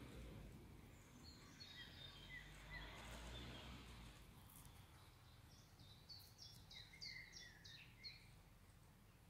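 Faint songbird calls over a low rumble: scattered chirps, then a quick run of about eight repeated high notes in the second half.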